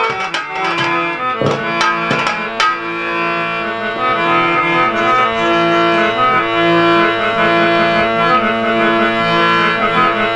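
Harmonium playing a melodic instrumental interlude, held chords and melody notes, with a few sharp hand-drum strokes in the first three seconds.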